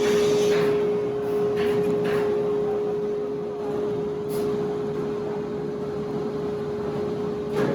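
A steady mechanical hum at one pitch, with a few light clicks over it.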